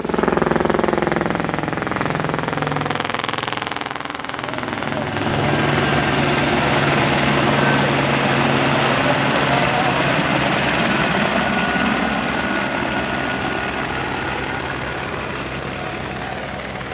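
Helicopter flying past, a loud, continuous rotor and engine noise that grows louder about five seconds in and slowly fades toward the end.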